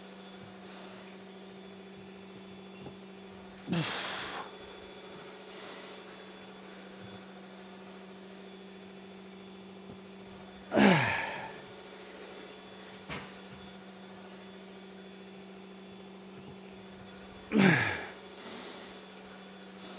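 A man's voiced, effortful exhales during a hard exercise: three sounds falling steeply in pitch, about seven seconds apart, over a steady low hum.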